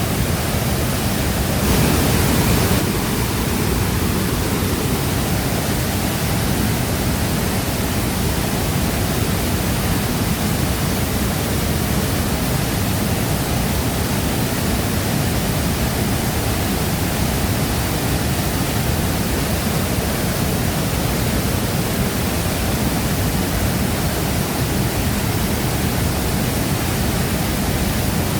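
Shifen Waterfall's water falling into its pool: a steady, even rush of water, a little louder for about a second near the start.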